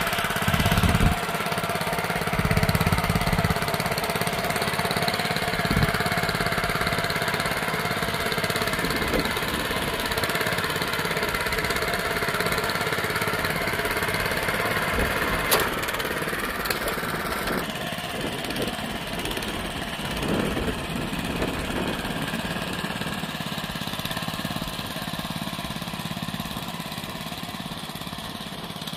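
Honda FJ500 DLX tiller's small single-cylinder four-stroke engine running steadily under load as its spring tines churn through soil, with a few low thumps in the first few seconds.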